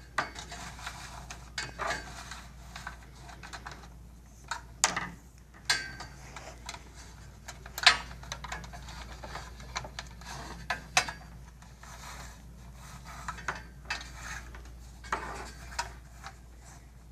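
Wire being fed by hand up a channel inside an infrared barrier tower: rustling and scraping of the wire against the tower's body, with irregular clicks and knocks. The sharpest knocks come about 5 and 8 seconds in.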